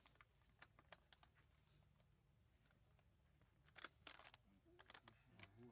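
Near silence with faint, scattered clicks and crinkles, thickening into a short cluster of crackles about four seconds in and again near the end, from a plastic cup being handled by a young monkey.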